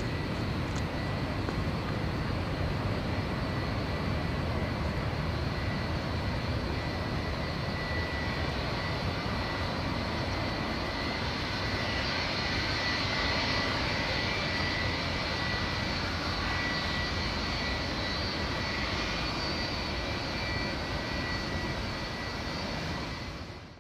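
Boeing 737-300 freighter's CFM56-3 turbofans at takeoff thrust as the jet accelerates away down the runway and climbs out. A steady jet roar carries a thin high fan whine that is strongest in the middle, and the sound fades near the end as the aircraft recedes.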